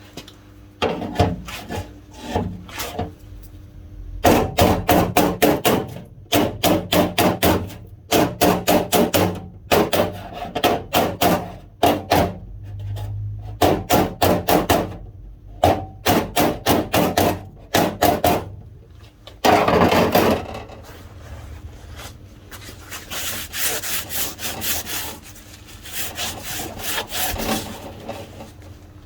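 Runs of mallet blows on the folded bottom edge of a car door's steel skin, several strikes a second with short pauses between runs, knocking the flange over the door frame to close the seam.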